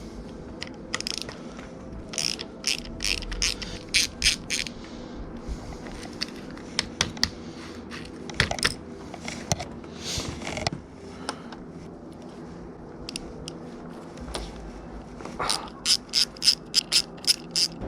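Ratchet wrench clicking in quick runs of strokes, a few seconds in and again in a faster run near the end.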